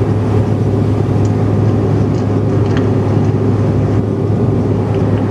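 Steady cabin drone of a Bombardier CRJ900 in flight: its two rear-mounted GE CF34 turbofans and the airflow make a loud, even rumble with a constant low hum.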